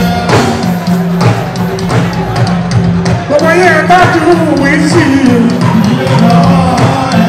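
Live fuji music through a PA: a band's drums and steady repeated bass notes, with a man singing into a microphone over them.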